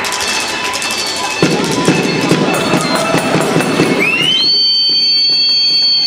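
A fans' drum beating in the stands with crowd noise, joined about four seconds in by a long, high, steady horn blast that rises at its start.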